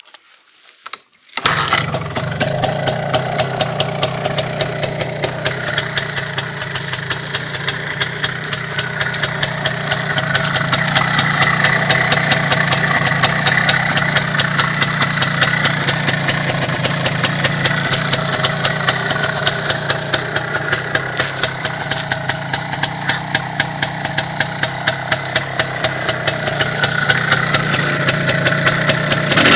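MZ 150 motorcycle's single-cylinder two-stroke engine catching about a second and a half in, then idling steadily with a rapid, even beat.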